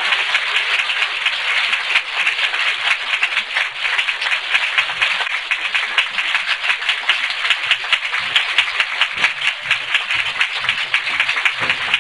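Audience applauding: steady, dense clapping from a crowd.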